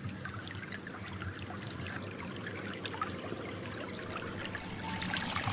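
Shallow water trickling steadily along a narrow field channel, a continuous babble of small splashes.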